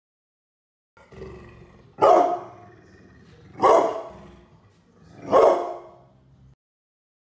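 A large brindle dog giving three deep warning barks, about a second and a half apart, with a low growl starting a second before the first bark and running on between them.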